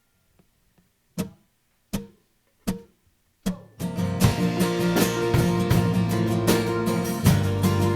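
Four evenly spaced clicks count in the song. The live band then comes in together about four seconds in, playing a guitar-led instrumental intro.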